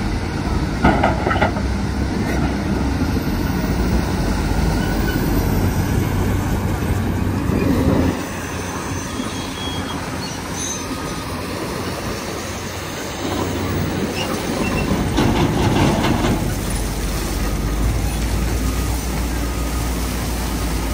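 Heavy diesel earthmoving machinery running: a tracked excavator loading dirt and rock into dump trucks, with brief clattering as material lands in the steel dump bodies.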